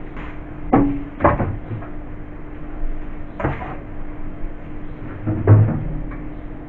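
Knocks and clatter of food containers, jars and bottles being taken out of a fridge and set down, about five sharp knocks spread over a few seconds, over a steady low hum.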